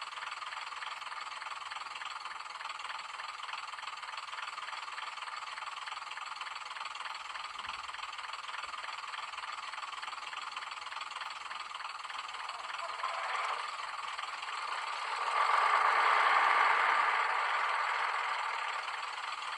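Sound decoder of a Graham Farish Class 101 N gauge DMU model playing its cold-start diesel engine sound through the model's small speaker: the engines run steadily, with little bass. The sound swells briefly about 13 seconds in and grows louder again from about 15 to 18 seconds.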